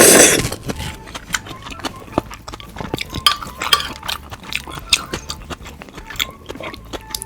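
Close-miked eating sounds: wet chewing and small mouth clicks with occasional light clinks of utensils or dishes. A loud burst of noise, like a slurp or sip of the soup, ends about half a second in.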